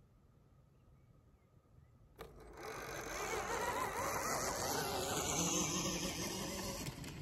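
Electric KTM Freeride dirt bike pulling away from a standstill in ride mode 1: the motor's whine starts suddenly about two seconds in, along with tyre noise on sand, and falls in pitch as the bike moves off.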